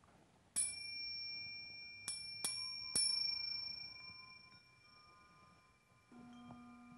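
A small high-pitched metal bell is struck four times within about two and a half seconds, each ring clear and slowly fading. About six seconds in, a singing bowl is struck softly and hums with a low tone.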